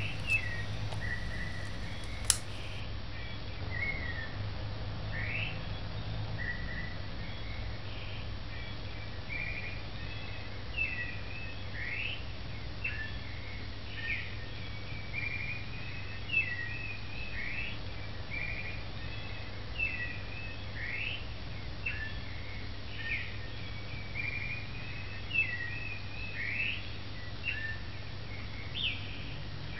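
A bird chirping over and over, in short quick calls that rise or fall, about one or two a second, over a steady low hum.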